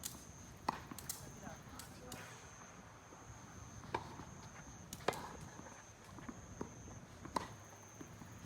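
Tennis ball being struck by rackets and bouncing on the court during a rally: sharp pops every second or two.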